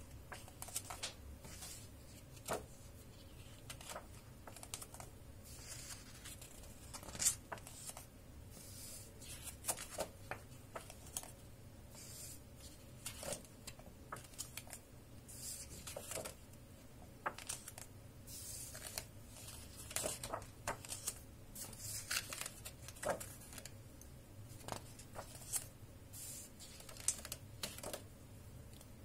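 Pages of a large hardcover picture book being turned and handled: paper swishes, rustles and light taps and clicks, scattered irregularly.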